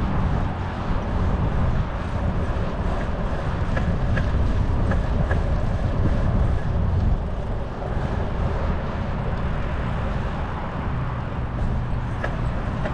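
Wind buffeting the microphone and road rumble from a bicycle rolling along a paved path, with a few faint light ticks.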